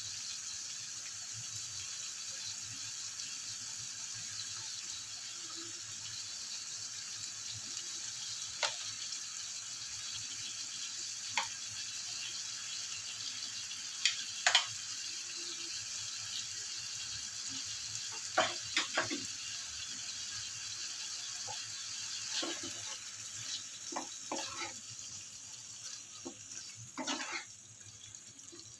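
Chicken sizzling steadily in oil and gravy in a non-stick frying pan, with scattered sharp pops. In the last third a spatula starts scraping and knocking in the pan as the chicken is stirred.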